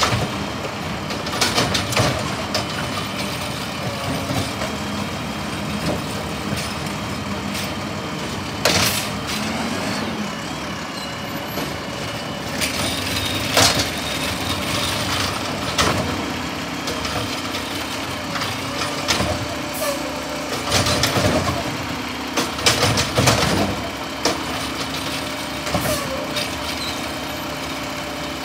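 Mack garbage truck with a McNeilus automated side-loader body emptying wheeled carts: the diesel engine runs steadily while the hydraulic arm lifts and dumps the carts, with repeated sharp clunks and bangs of cart and lid against the body, loudest about halfway through and again some twenty seconds in.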